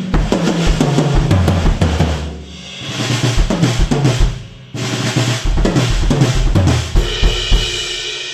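Acoustic drum kit with copper shells and Pasha cymbals played hard: fast fills that step down across the toms, with kick and snare. There is a lighter passage about two and a half seconds in, then full playing again, ending on a cymbal crash near the end that is left ringing.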